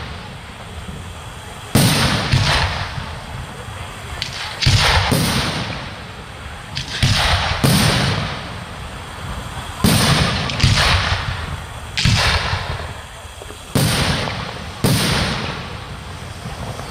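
Aerial fireworks bursting overhead: a run of sharp bangs every second or two, often in close pairs, each trailing off in a long echo.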